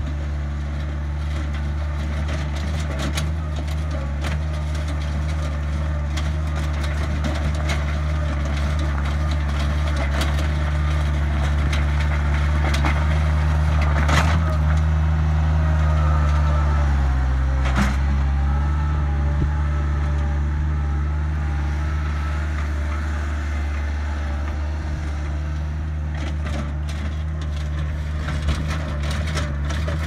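Skid steer loader's engine running steadily while it works a rock rake bucket, with rocks knocking and clattering against the steel tines. The engine grows louder as the machine comes close, and its note dips briefly about halfway through as the rake shoves a pile of rocks.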